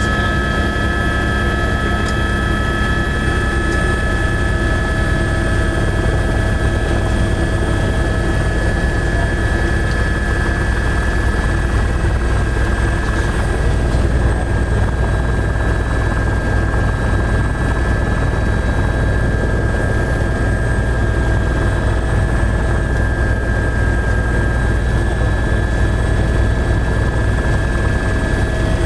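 Steady running noise of a vehicle: a low rumble with a few steady, unchanging high tones over it.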